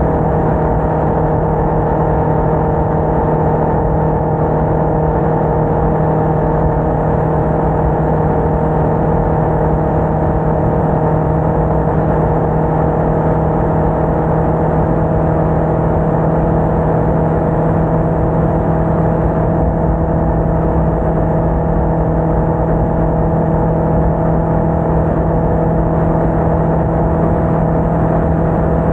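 Motorcycle engine running at a steady cruising speed, a constant droning note that holds the same pitch throughout, over the rush of wind and road noise.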